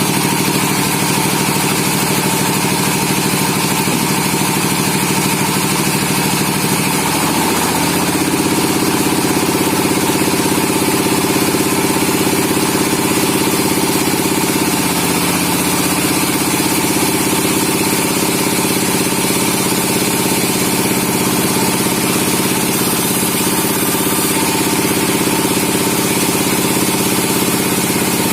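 Sawmill engine running steadily, its pitch rising about seven seconds in as it speeds up, then holding at the higher speed.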